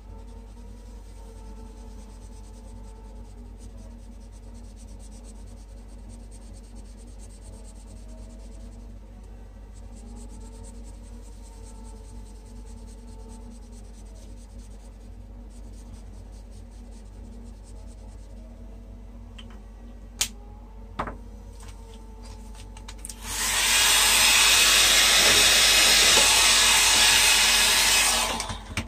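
Conair hair dryer switched on and blowing steadily for about five seconds to dry the alcohol ink, then switched off. A couple of sharp clicks come a few seconds before it starts.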